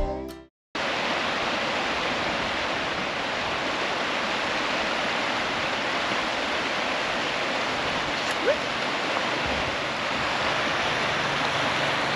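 River water rushing over a stony bed: a steady, even rush that starts abruptly about a second in and holds without change.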